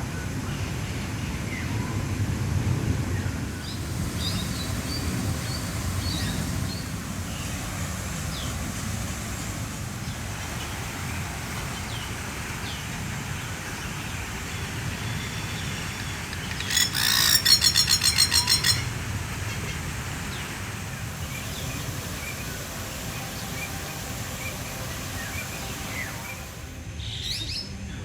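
Birds calling in an aviary over a steady low background noise, with scattered short chirps and whistles. About halfway through, one bird gives a loud, fast-pulsed rattling call lasting about two seconds.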